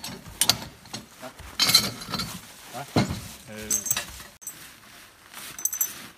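Scattered metallic clinks and knocks of harness chains and gear being handled, with a few brief low voices in the background.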